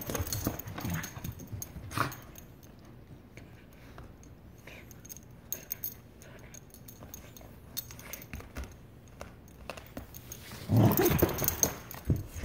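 Aussiedoodle play-growling at a fabric toy as she shakes and chews it: growls at the start, quieter scuffling and small clicks through the middle, and a louder burst of growling near the end.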